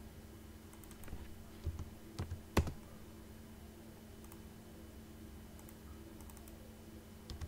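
A few scattered computer keyboard key presses, the sharpest about two and a half seconds in, over a faint steady hum.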